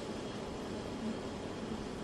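Steady background noise: an even hiss with a faint low hum.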